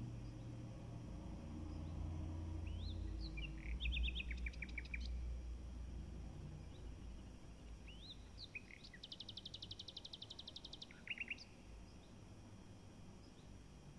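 A small songbird singing two phrases of short rising chirps, the second running into a fast, even trill, over a steady low rumble.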